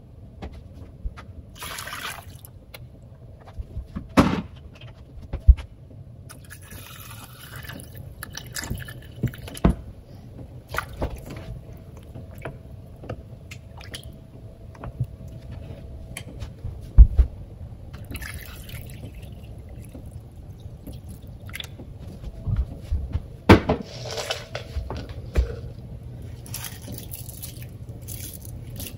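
Ladle stirring chicken broth in a pot: liquid sloshing and dripping, with scattered sharp knocks and clicks of the ladle against the pot.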